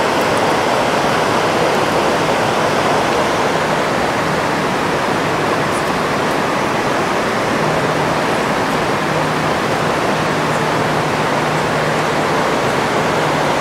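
Steady rush of a fast, shallow river current flowing over a rocky bed.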